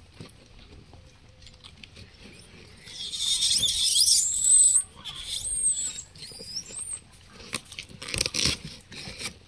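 Gray langur giving a shrill, high-pitched squealing screech for nearly two seconds, about three seconds in, rising in pitch, followed by a few shorter sliding squeals. A brief burst of rustling knocks comes near the end.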